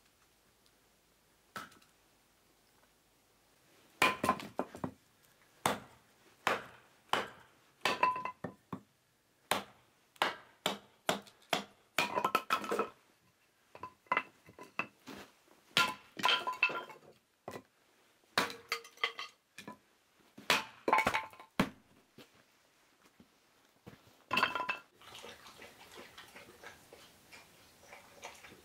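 The restored old Soviet axe splitting kindling on a chopping stump: a string of sharp chops and knocks, with the split dry sticks clinking and clattering. About 25 seconds in the chopping stops and a wood fire crackles faintly in the stove.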